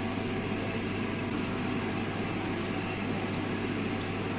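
Steady low hum with a hiss, unchanging throughout, with a couple of faint ticks near the end.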